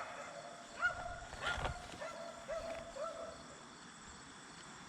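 Faint short calls from an animal, about half a dozen in the first three seconds, each a brief rising note that then holds steady. A soft knock comes about one and a half seconds in.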